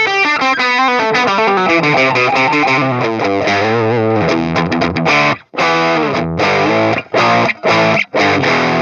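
Electric guitar played through the Flatsons KE1 multi-effects pedal on its 'UK Normal' amp model. A quick run of picked single notes gives way to chords that are cut short about five times by brief mutes in the second half.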